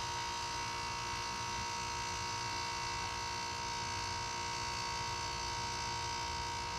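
2006 Nordic Air heat pump giving off a steady electrical buzz with a high whine in it, while its outdoor fan is not turning.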